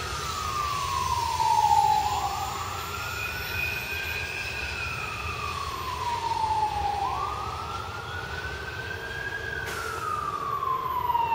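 An emergency vehicle's siren wailing, its pitch rising and falling slowly about every five seconds, over a steady low rumble.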